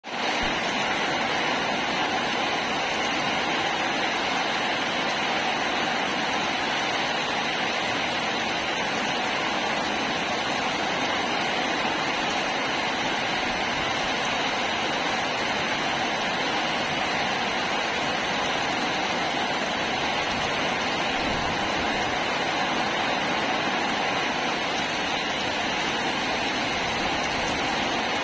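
Steady rain: an even, unbroken hiss of falling water that rises in at the very start and then holds level.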